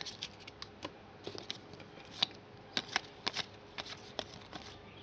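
Donruss Soccer 2015 trading cards being flipped through by hand, one card slid off the stack after another: irregular light clicks and snaps of card stock against card stock.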